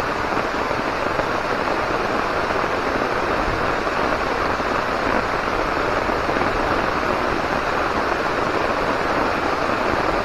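Rain falling steadily in a thunderstorm shower: a dense, even hiss that holds the same level throughout.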